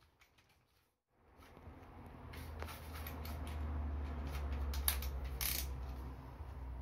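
Keyless chuck of a cordless drill being twisted by hand to change bits, with ratcheting clicks and scattered sharp metallic clicks as the bit comes out and the hex bolt driver goes in, over a low steady hum. It starts about a second in.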